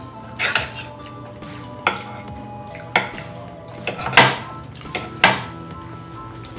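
Eating utensils clinking and scraping against dishes in five short, sharp bursts, the loudest about four seconds in, over steady background music.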